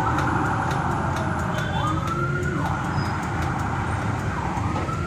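A wailing siren tone that sweeps down and back up about every two and a half seconds, over a steady low rumble.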